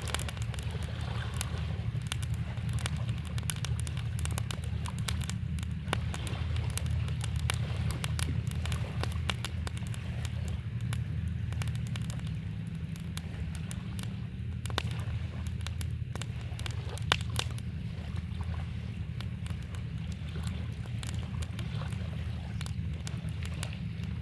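Campfire crackling, with frequent sharp pops and one louder pop about 17 seconds in, over a steady low rush of flowing river water.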